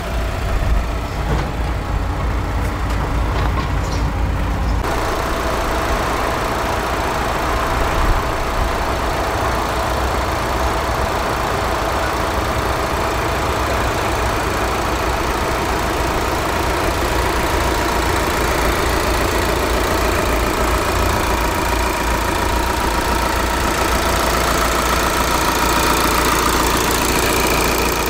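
The 2017 Volkswagen Caravelle T6's 2.0 TDI inline-four common-rail diesel idling steadily, with its diesel clatter.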